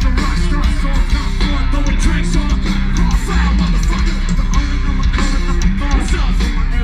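Loud live rock music from a band: heavy bass and drums, electric guitar and a singer's voice.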